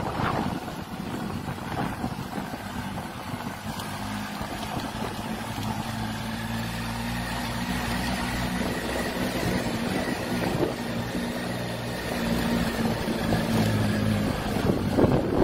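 Motorcycle engine running at a steady, low speed, with wind rushing over the microphone. The wind is heavier at the start and again near the end.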